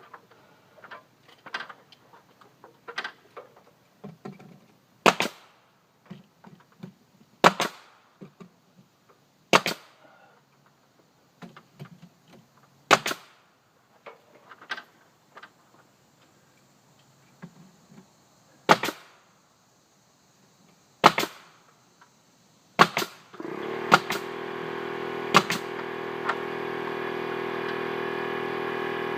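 Pneumatic nail gun firing single shots every two to three seconds as soffit boards are nailed up, with lighter knocks and taps of handling between shots. About 23 seconds in, an air compressor starts and runs steadily under the last few shots.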